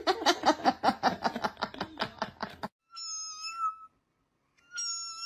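Kitten mewing rapidly, about five short cries a second, which stops abruptly. After a pause a cat gives two long, level meows about two seconds apart.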